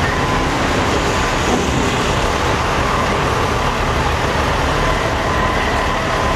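Diesel semi trucks idling together, a dense steady rumble, with a faint steady horn tone held underneath that grows clearer near the end.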